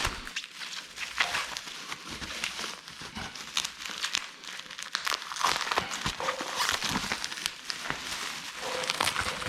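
Packaging being handled and crinkled while unpacking parts, a continuous rustling with many small clicks and knocks mixed in.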